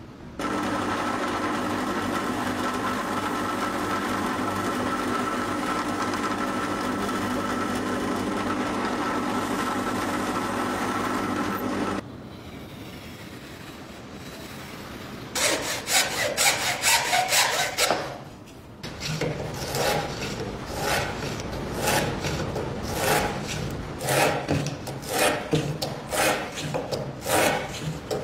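A loud, steady hum at one fixed pitch for about twelve seconds, then hand-tool strokes on wood: a hand plane shaving a thin wooden strip, about one stroke a second.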